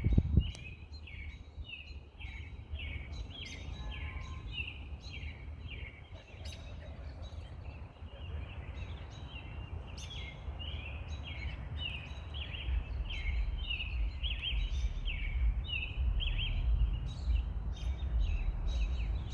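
Birds chirping, short calls repeating about twice a second without a break, over a low rumble that grows louder in the second half. A brief thump right at the start.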